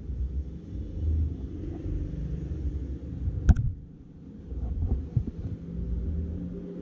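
Low, irregular rumbling, with one sharp click about halfway through.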